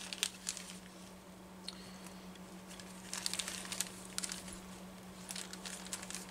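Plastic bag of a carburetor rebuild kit crinkling as it is handled, in short spells of rustling about three seconds in and again near the end, over a steady low hum.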